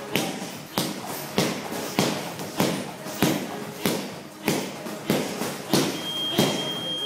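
Strikes landing on hand-held Muay Thai pads in steady pad-work rhythm, a sharp smack about every 0.6 seconds, around eleven in all. A steady high electronic beep comes in near the end.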